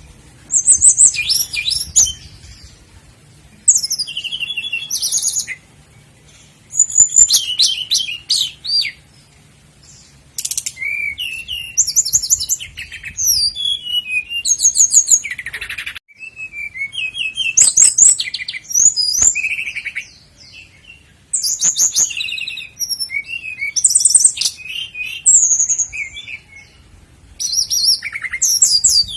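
Common nightingale singing: a run of varied, high-pitched phrases of rapid repeated notes and trills, each a second or two long, with short pauses between them.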